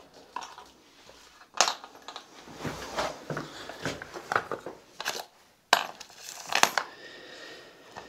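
Small metal drill bits clinking and rattling as they are handled and sorted, with a few sharp clicks spread through.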